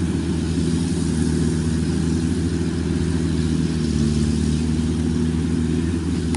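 Yanmar combine harvester running steadily while cutting rice: a constant, loud engine hum with the threshing machinery turning.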